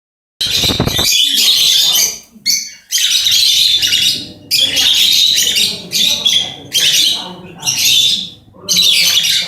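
Rosy-faced lovebird chatter: shrill, rapid squawking and chirping in bouts of a second or two with short pauses between. A brief low thump sounds about half a second in.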